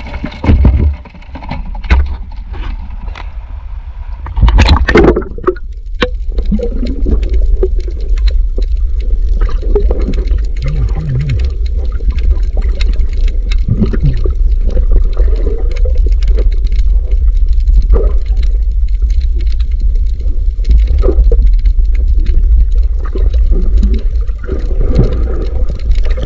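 Water splashing about five seconds in, then muffled underwater noise heard through a diver's camera: a steady low rumble with bubbling and water movement.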